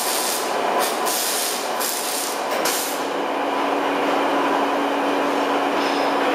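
Plastic granulator with lift feeder running: a dense, steady machine noise with hissing over the first three seconds, then a steady hum comes in about three seconds in.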